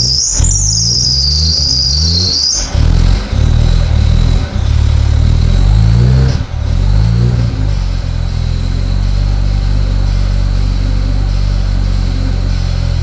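Nissan RB26DETT twin-turbo straight-six running roughly on its first start with a freshly installed Haltech Elite ECU on a base map. The revs rise and fall repeatedly with several brief stumbles, then settle to a steadier run. A high wavering squeal sounds over the first couple of seconds.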